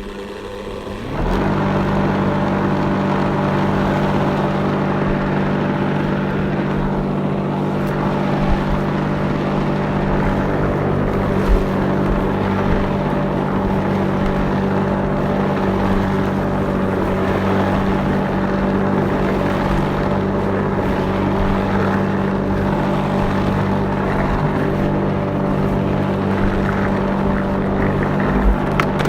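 Lawnmower engine running while mowing grass: it steps up from a quieter run to full speed about a second in, then holds a steady drone.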